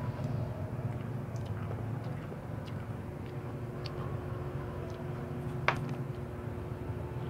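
Small crackles and clicks of fingers peeling the shell off a cooked shrimp over a steady low background hum, with one sharper click late on.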